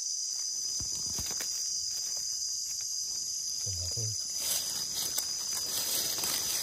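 Steady, high-pitched drone of insects in the forest. In the second half, dry leaf litter rustles and crunches under footsteps. There is a brief low murmur of voice about four seconds in.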